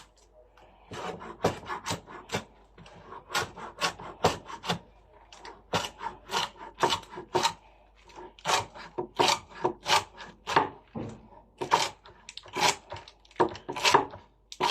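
A butcher knife chopping a roll of leafy greens into thin slices on a chopping board. The chops start about a second in and come about two a second, with a few short pauses.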